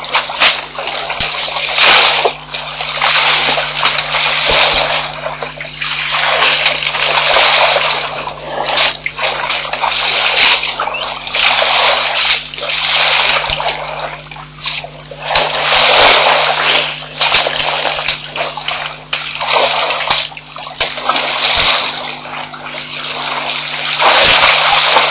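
Elephants splashing and sloshing water, in uneven surges that swell and fade every second or two, over a steady low electrical hum.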